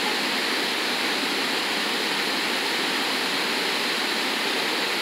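River water washing against a rocky shoreline: an even, steady rush.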